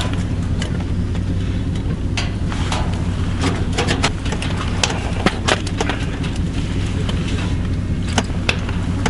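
A steady low motor hum, with scattered short clicks and light knocks over it.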